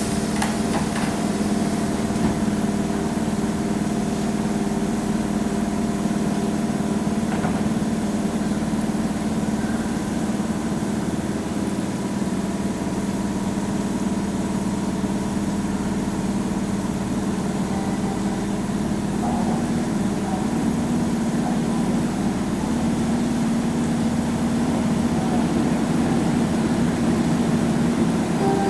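Keihan 2400 series electric train standing at the platform, its onboard equipment giving a steady hum with several held tones and a low rumble beneath. The hum grows a little louder near the end.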